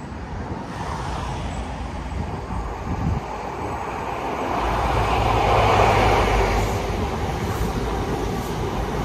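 A CrossCountry InterCity 125 (HST) approaching and passing at speed. The Class 43 diesel power car's engine and rumble grow to their loudest about six seconds in. The Mark 3 coaches follow, their wheels clicking over the rail joints about once a second.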